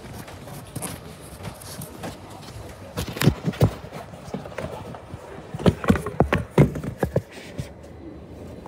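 Footsteps knocking on the floor of a Hong Kong double-decker tram's upper deck. There is a short run of irregular knocks a few seconds in and a longer run of quick knocks later, over a steady background hum.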